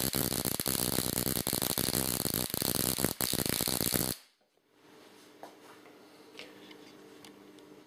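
Ruhmkorff induction coil firing a spark across the gap between a pointed electrode and a flat metal disc: a loud, rapid buzzing crackle. It cuts off abruptly about four seconds in, leaving faint room noise.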